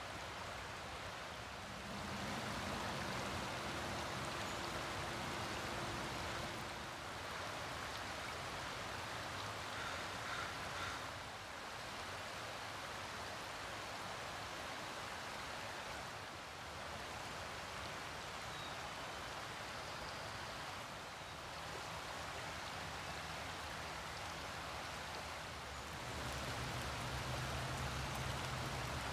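Steady, even hiss of water, either a shallow forest creek running or rain falling, with no single event standing out. A low hum comes in near the end.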